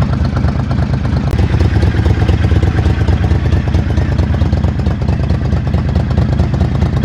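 Motorcycle engine running steadily, its exhaust pulses coming in a rapid, even stream.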